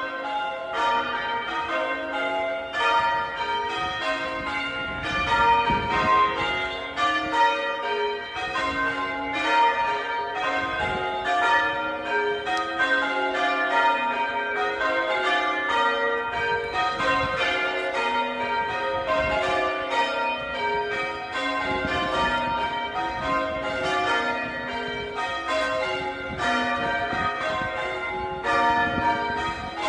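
Church bells change ringing: a ring of tower bells struck one after another in a rapid, even, unbroken succession, their ringing tones overlapping, as the order of the bells changes from row to row.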